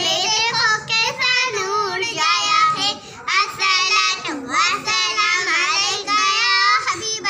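Young girls singing together in high children's voices, phrase after phrase, with brief pauses between phrases.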